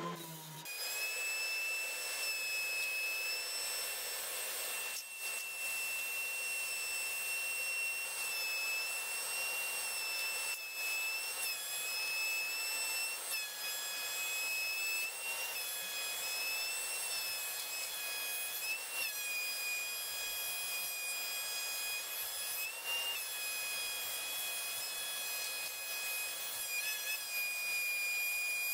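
Benchtop thickness planer running with a steady high-pitched whine. Its pitch dips briefly a few times as boards feed through the cutterhead.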